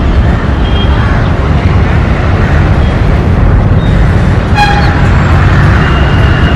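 ALCo WDM-3A diesel locomotive's engine chugging steadily as it approaches, with a short high-pitched tone about four and a half seconds in.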